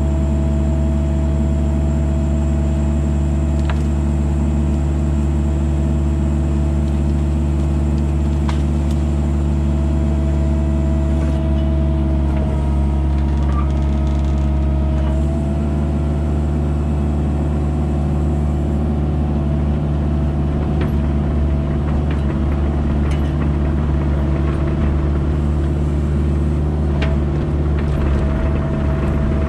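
Kubota mini digger's diesel engine running steadily with its hydraulics working as the arm pulls fence posts out of the ground. The engine note shifts slightly about halfway through.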